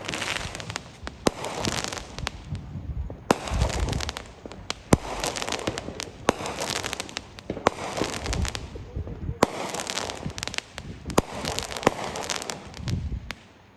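Firecrackers and fireworks going off all around: scattered sharp bangs through the whole stretch, with repeated runs of dense crackling.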